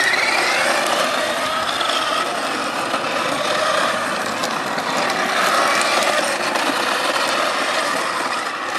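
Battery-powered children's ride-on go-kart driving over coarse paving: its electric motor whine rises at the start and then runs on steadily, over a continuous grinding rasp of plastic wheels on the rough surface.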